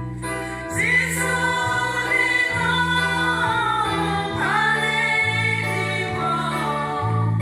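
A group of women singing a Christmas hymn together, over an instrumental backing whose low bass notes change about every half second.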